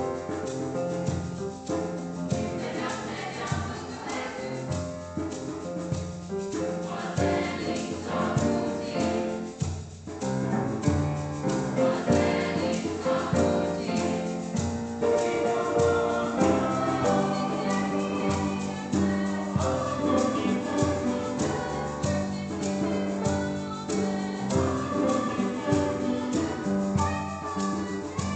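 A mixed choir of young voices singing a song together in parts.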